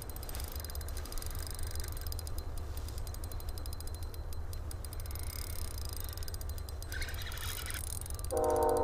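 Spinning reel's drag ticking rapidly as a large lake trout runs and strips line against the bent ice rod, over a low wind rumble on the microphone. Near the end a steady pitched tone with overtones comes in.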